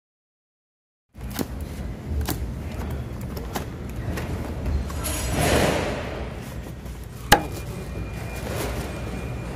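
A CCTV DVR being handled out of its cardboard box: packaging rustling and scraping, with scattered clicks and one sharp tap about seven seconds in, over a steady low rumble. The first second is silent.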